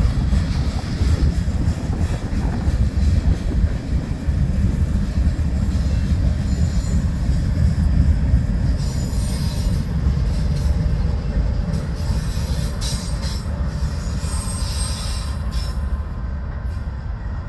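Freight train rolling past: loaded gondola cars and then the trailing locomotive, a BNSF GE Dash 9 (C44-9W) diesel, make a steady low rumble of wheels on rail. A high wheel squeal comes and goes in the second half, and the rumble slowly fades as the locomotive draws away.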